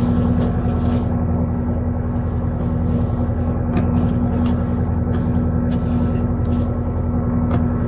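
A boat engine running steadily, a constant deep drone with a strong low hum, with a few faint ticks over it.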